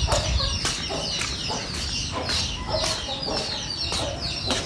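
Chickens clucking, with a dense run of short, high chirping calls several times a second.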